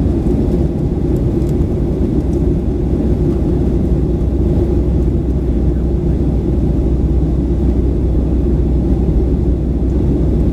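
Steady low drone of a Boeing 737-900's CFM56 jet engines and airflow, heard inside the passenger cabin.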